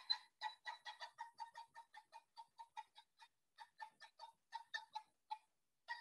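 Pileated woodpecker calling: a long, even series of short 'kuk' notes, about five a second, with a brief pause near the end before the series starts again.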